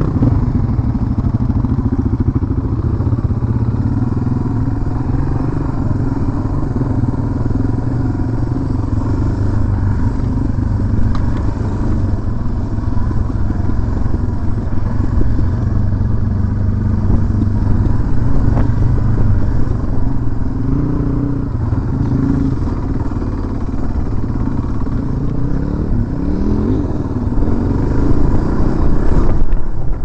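Dual-sport motorcycle engine running at low speed on a rough dirt trail, heard close up from the bike itself. Its low note rises and falls with the throttle, with several climbs in pitch in the last third, and it grows louder near the end as the bike speeds up.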